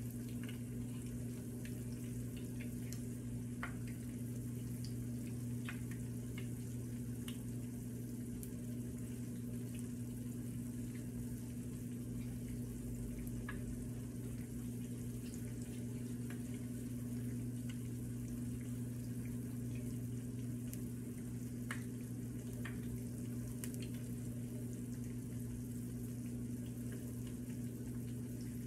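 Conch fritter batter shallow-frying in oil in a skillet: a steady sizzle with scattered small pops and crackles, over a steady low hum.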